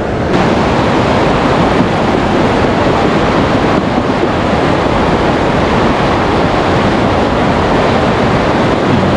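Loud, steady rushing of fast river current.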